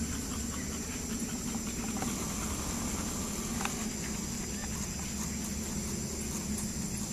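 Steady high-pitched insect chorus over a low, even hum, with a few faint ticks.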